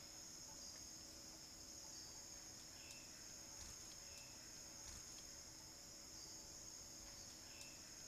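Faint, steady, high-pitched chorus of insects, with a few faint short clicks and chirps now and then.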